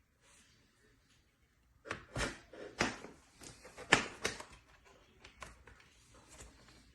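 A quick run of sharp clicks and knocks, the loudest about four seconds in, from an HDMI cable being handled and plugged into a USB-C docking station, then a few lighter ticks.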